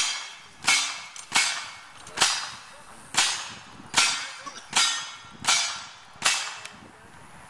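A steady string of about nine gunshots, roughly three-quarters of a second to a second apart, each sharp crack trailing off with a short echo.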